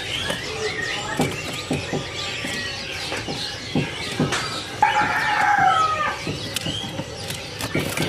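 Caged songbirds chirping and calling, with wings fluttering and light knocks inside a wooden cage. A louder, longer call with a falling pitch comes about five seconds in.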